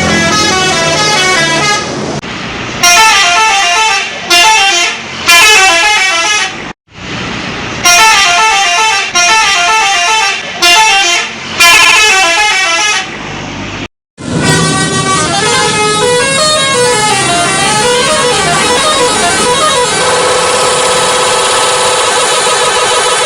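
Indonesian bus 'telolet' horns, multi-tone musical horns, playing quick stepping note tunes, broken by sudden cuts about 7 and 14 seconds in. After the second cut the notes zigzag up and down, then settle into a steady held chord about 20 seconds in.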